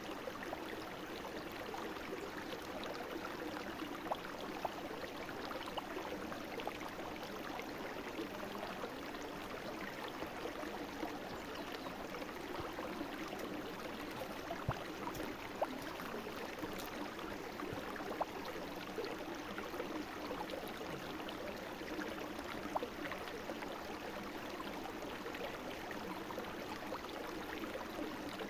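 A small brook babbling and gurgling steadily over stones, with scattered small splashes.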